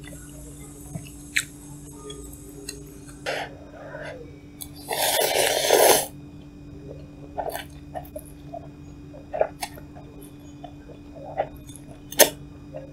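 Someone eating cup noodles: scattered small clicks and chewing, with a loud rush of noise lasting about a second about five seconds in, over a steady low hum.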